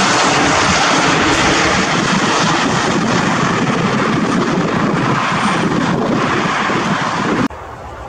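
Light helicopter flying overhead, a loud steady engine and rotor noise; it cuts off sharply near the end, leaving a much quieter background.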